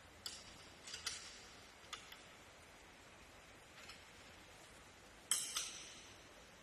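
Scattered sharp metallic clicks and clinks of a wrench working the bolts on a steel tyre-support stand as they are tightened to lock its width; the loudest pair comes about five seconds in.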